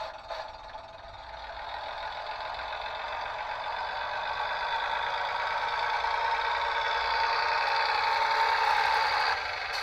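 Sound-fitted Bachmann OO-scale Class 101 DMU model playing its diesel engine sound through its small onboard speaker, thin and without bass, growing steadily louder as the unit powers up, then dropping suddenly near the end.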